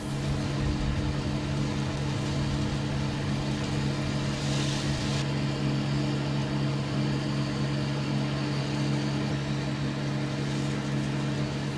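Vehicle engine idling with a steady low hum, with a brief hiss about four and a half seconds in.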